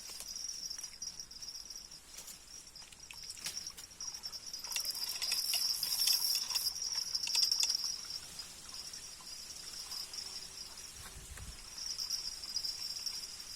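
Crickets trilling in a steady high band that drops out for a few seconds past the middle and returns near the end. A louder stretch of scraping noise and knocks sits in the middle.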